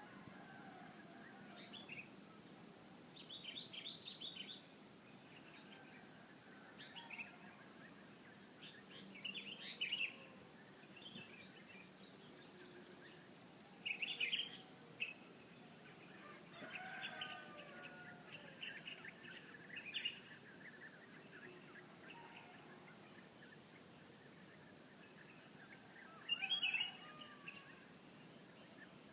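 Small birds chirping in short, scattered calls, the loudest about halfway and near the end, with a rooster crowing in the distance. A steady high-pitched hiss runs underneath.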